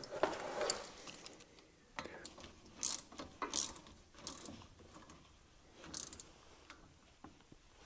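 Quiet, scattered metal clicks and small rattles of hands and a tool working at a brake caliper, bolting the brake-pad wear-sensor harness in place.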